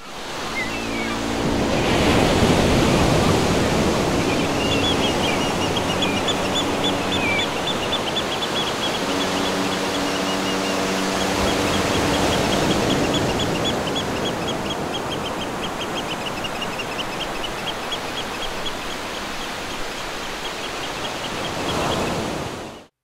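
Ocean surf washing steadily, with a high chirping repeated several times a second and low steady tones that come and go. Everything fades out just before the end.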